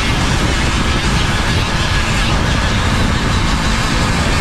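Flex-shaft rotary tool spinning a sanding drum against a carved wooden decoy head: a steady motor whir with the rasp of sanding, unbroken throughout.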